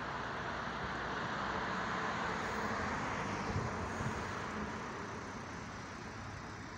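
Road traffic noise from passing cars, swelling to a peak about two to three seconds in and then slowly fading.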